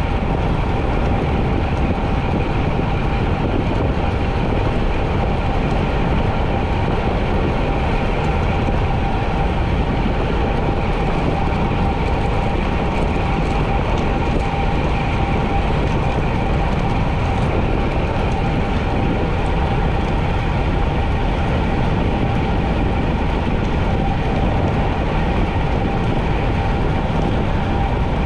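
Bicycle ridden at speed: a steady rush of wind and road noise, with a constant thin whine running through it.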